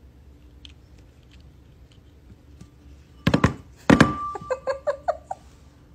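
An apple knocked by a cat drops into a ceramic bowl: two sharp knocks about half a second apart, the second setting the bowl ringing, then a quick run of fading rattles as the apple settles in the bowl.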